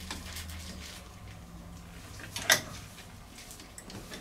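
Hand tool working on a steam engine's crosshead to loosen the set screw holding the bearing wedge: small clicks and scrapes, with one sharp clank about two and a half seconds in.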